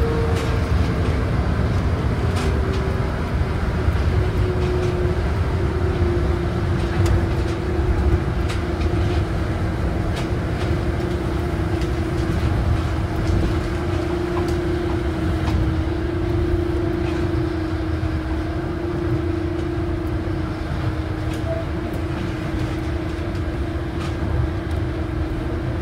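Osaka Monorail 2000 series train with Hitachi IGBT inverter running, heard on board: a steady motor whine over a low running rumble. The whine slides down in pitch over the first several seconds, then holds nearly level.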